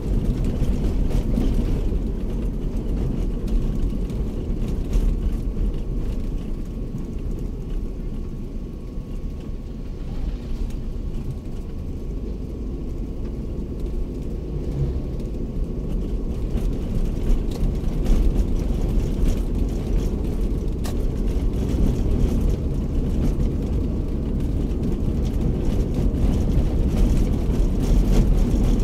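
Cabin noise of a Daihatsu Terios driving at low speed: a steady low rumble of engine and tyres. It eases a little about a third of the way in and builds again afterwards.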